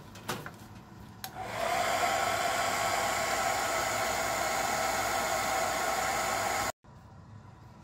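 Handheld hair dryer switched on about a second in and running steadily, a blowing rush with a steady whine, drying the fresh paint on a fishing lure held in its air stream. It cuts off abruptly near the end. A few light clicks of handling come before it.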